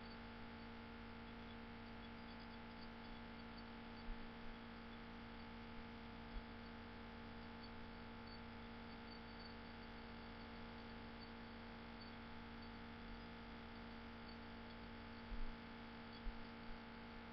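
Steady low electrical hum with faint hiss in the recording, broken only by a few faint clicks.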